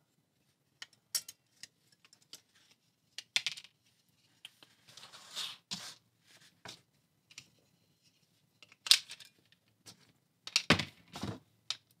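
Small plastic remote control being handled and its case pressed back together: scattered sharp plastic clicks and snaps, with a brief scraping rub about five seconds in and the loudest clicks about nine seconds in and near the end.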